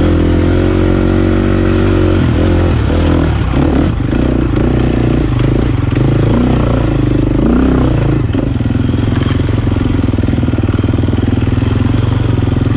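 KTM dirt bike engine running under load, holding a steady note for the first couple of seconds, then revving up and down as the throttle is worked through the trail's turns and climbs.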